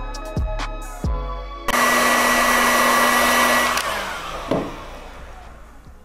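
A few notes of background music, then an electric heat gun starts blowing with a steady motor hum. After about two seconds it is switched off and its fan winds down, the hum falling in pitch as it fades.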